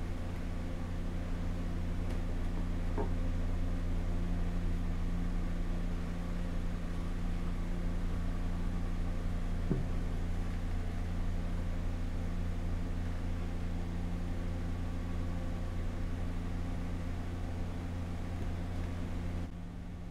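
Steady low mechanical hum, like a fan or motor running, with a couple of faint ticks; the hum drops away near the end.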